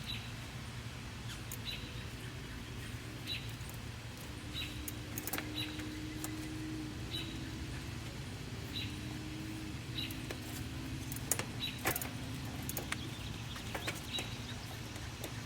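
Metal clicks and clinks of tools and bicycle parts as the rear wheel's axle bolts are loosened and the wheel and chain are worked free, with two sharper clicks near the end. A low steady hum runs underneath, and a faint short high chirp repeats about once a second.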